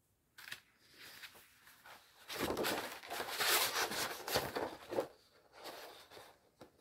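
Plastic packaging of a metal cutting die rustling and crinkling as it is opened, for about three seconds in the middle, with a few light taps before and after.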